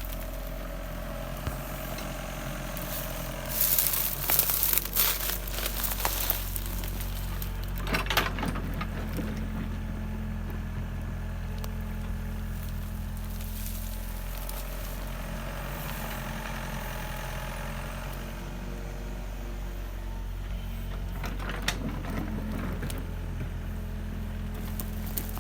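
A machine running with a steady low hum, with bursts of crackling, scraping noise about four to six seconds in, again near eight seconds and near twenty-two seconds.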